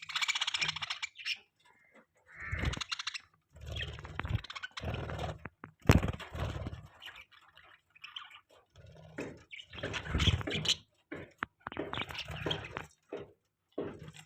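Budgerigars chirping and chattering in bursts of a second or so, with short silent gaps between them.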